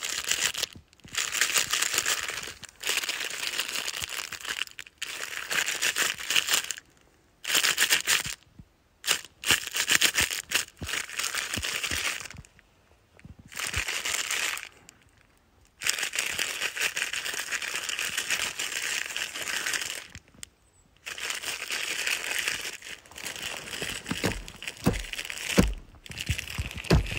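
Hand-held deer rattling call worked in repeated bursts of one to four seconds, a dense clatter of clicks meant to imitate bucks' antlers clashing, with short pauses between bursts. A few low thumps come near the end.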